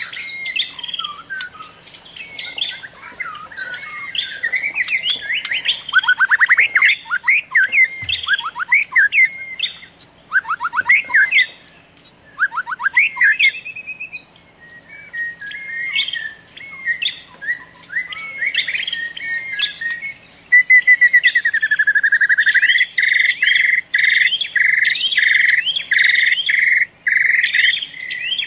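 Several wild birds chirping and singing, with quick varied chirps and fast trills. Near the end one bird gives a swooping call, then repeats the same loud note about one and a half times a second. A thin, steady, high tone runs underneath.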